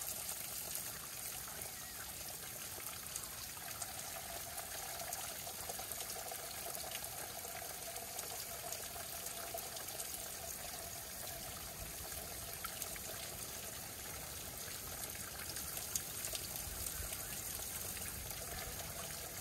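Spring water trickling and dripping off a rock ledge into a plastic water bottle held under the flow to fill it; a steady, even trickle.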